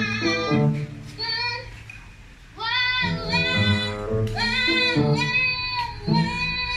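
A child's voice singing a drawn-out "woah-woah-wooah" over background music, the long notes bending up and down in pitch, strongest from about two and a half seconds in.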